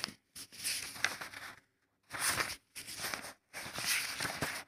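Sheets of paper rustling in several short bursts as they are handled and shifted on the desk.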